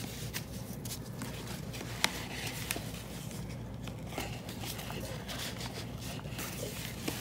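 Paper rustling and light tapping as the pages and tags of a handmade paper junk journal are handled and turned, with one sharper click about two seconds in.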